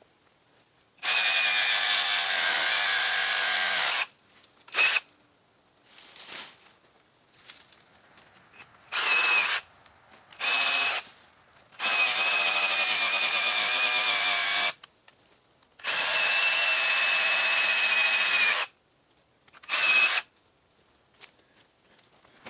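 Ryobi P517 18V brushless cordless reciprocating saw running in start-stop bursts, with a steady high motor whine. Three runs of about three seconds each are broken by short trigger blips and quiet pauses.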